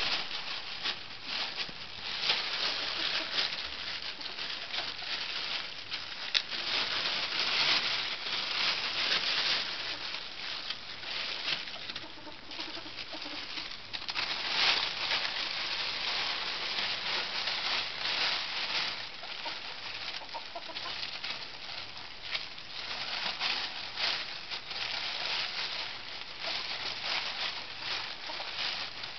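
Thin plastic shopping bag crinkling and rustling without a break as two ferrets burrow and wrestle inside it.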